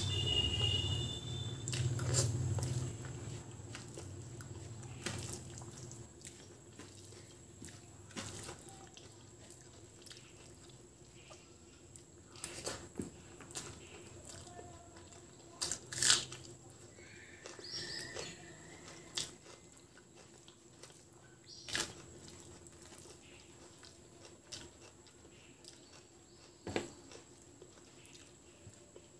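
Close-up eating sounds of rice and curries being eaten by hand: sparse wet mouth clicks and chewing smacks a few seconds apart, over a faint steady hum.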